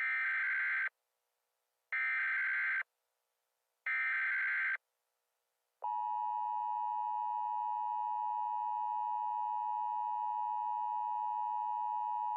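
Emergency Alert System SAME header: three short, buzzy data-tone bursts about two seconds apart. About six seconds in they are followed by the steady two-tone EAS attention signal, which announces the alert message to come.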